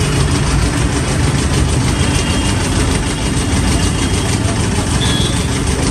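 An engine running steadily at a low, even pitch, with no change in speed.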